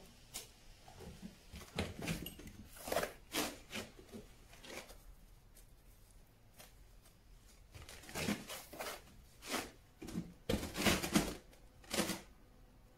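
Irregular scrapes and taps of a trowel working sand-and-cement mortar as a padstone is bedded into the wall, coming in short clusters with brief pauses.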